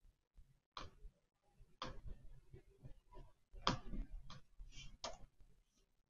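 Faint, irregular clicks and taps of a computer mouse as its wheel and button scroll through and pick from a drop-down list, about ten in all, unevenly spaced.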